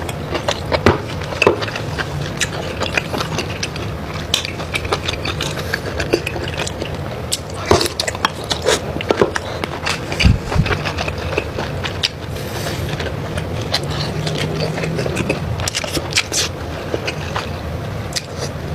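Close-miked mukbang eating sounds: chewing and crunching with many small clicks, crackles and scrapes.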